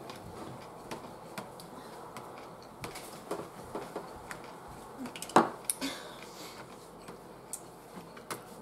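Mealtime sounds at a table: forks clicking and tapping against black plastic takeaway sushi trays, a scattering of light clicks with the sharpest one about five seconds in, over quiet chewing.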